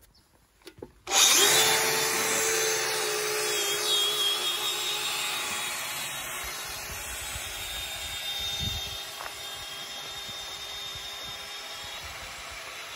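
Angle grinder motor switched on about a second in, running at speed with a steady whine as it powers a homemade scooter's wheel, growing fainter as the scooter moves away.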